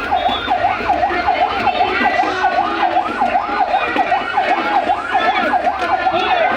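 Several emergency-vehicle sirens sounding together in a fast yelp, their pitches sweeping up and down about three times a second and overlapping. Near the end one tone slowly falls in pitch.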